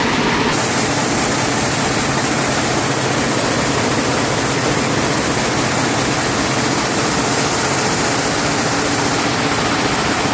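Picanol OmniPlus-i Connect air-jet weaving looms running at production speed: a loud, steady, dense mechanical din.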